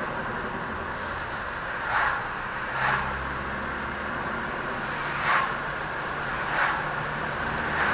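Ford Focus ST's turbocharged engine running, with about five short whooshes as the throttle is lifted off, each a brief rush of air. It is a faint sound the owner takes for turbo flutter, which the blow-off/bypass valve sometimes masks.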